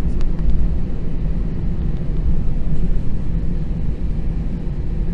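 Steady jet engine and airflow rumble inside the cabin of an Airbus A320 climbing after take-off, heard from a window seat beside the engine.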